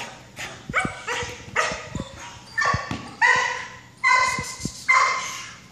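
Young Giant Schnauzer barking repeatedly, about six high-pitched barks in a few seconds, the later ones the loudest. She is barking at a decoy while held on a leash, worked up in prey drive.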